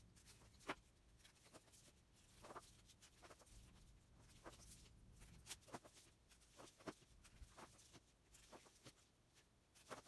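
Near silence with faint, scattered clicks and rustles of fireworks and fuse being handled on a tabletop.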